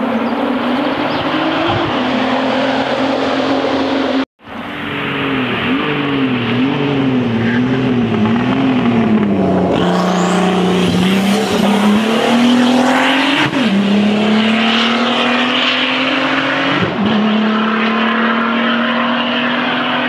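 Turbocharged 2.8 VR6 engine of a VW Golf IV hill-climb race car running hard under load. The note breaks off briefly about four seconds in, wavers up and down for a few seconds, then climbs steadily, dropping suddenly twice as it shifts up.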